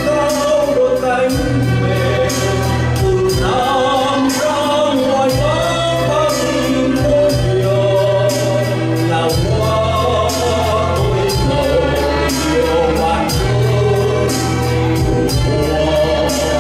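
A man singing a song into a microphone over amplified backing music with a steady beat and bass line.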